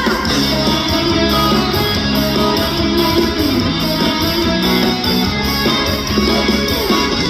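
Live band playing, with guitar leading over bass and a steady cymbal beat.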